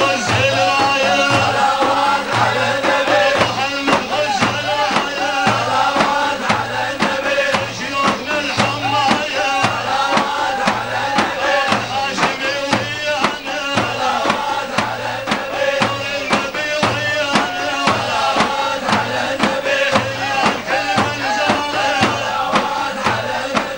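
Male voices chanting a Sufi devotional song in praise of the Prophet, over a steady, even drum beat.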